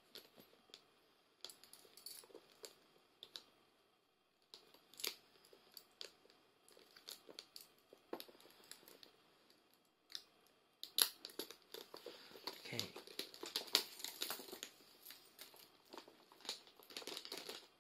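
Handling noises: scattered light clicks and rustling, sparse at first and busier from about eleven seconds in, from hands fitting small accessories with metal clips and chains onto a wallet.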